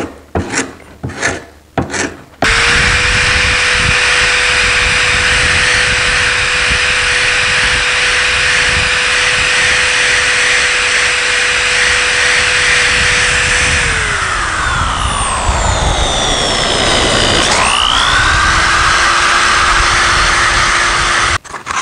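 A few strokes of a hand paint scraper on a painted oak chair part. Then a corded electric drill with a wire wheel starts and runs steadily, stripping paint from the wood with a steady whine and hiss. About two-thirds of the way through the drill slows down and picks up again, then cuts off suddenly near the end.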